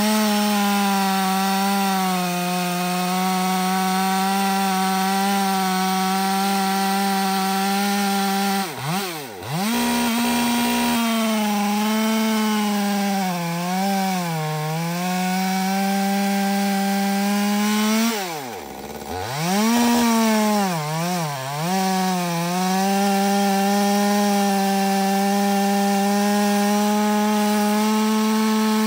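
Gas two-stroke top-handle chainsaw running at high revs through a large log, its pitch sagging as it bogs under load in the cut. The revs drop sharply and pick back up about 9 seconds in and again about 19 seconds in.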